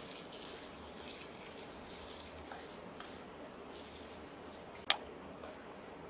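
Stir-frying in an Excalibur Flypan: a wooden spatula stirs and turns food in the hot pan over a steady noise bed, with one sharp knock of the spatula against the pan about five seconds in. Faint bird chirps come and go.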